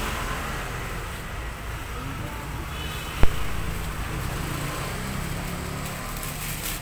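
Steady low rumble of nearby road traffic, with one sharp click about three seconds in.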